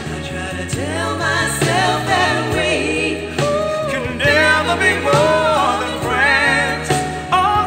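A pop song played back through a pair of HiVi B3N 3-inch full-range speakers: singing with wavering held notes over instrumental backing.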